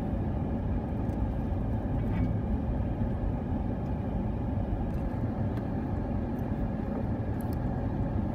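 Cabin noise of a four-wheel drive crawling over a rough bush track in four-wheel drive: a steady low rumble of engine and tyres, with a few faint clicks.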